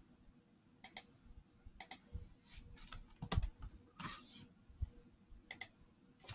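Sharp computer clicks as menus in a program are clicked through. There are three crisp double clicks, about one, two and five and a half seconds in, with softer taps and knocks between them.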